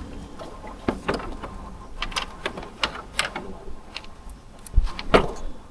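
Hand tools and metal parts clicking and tapping irregularly while the scooter's front fork is taken apart, with a dull thump about five seconds in followed by a sharper click.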